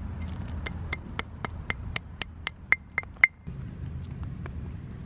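Antler billet tapping the edge of an obsidian axe head while knapping it thinner: a quick run of about a dozen sharp clicks, roughly four a second. The last few ring briefly, and the tapping stops about three seconds in.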